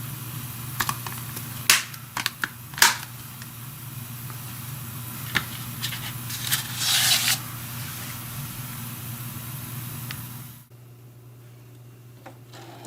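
Sharp clicks and taps with a brief rustle, typical of handling a plastic Blu-ray case and its wrapping, over a steady low hum. The background drops away suddenly about ten and a half seconds in.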